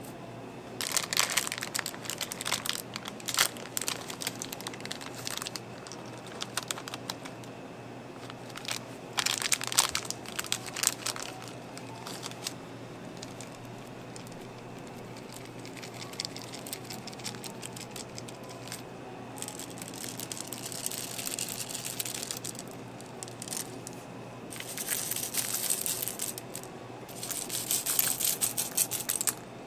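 Dry toppings such as crushed cookies, cornflakes and chocolate chips being scattered onto a crepe, in about five crackly, rustling bursts, over a steady low hum.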